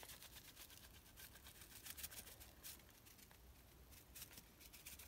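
Near silence, with a faint scattered patter of powdered au jus gravy mix being shaken from its packet onto a raw beef roast in a slow cooker.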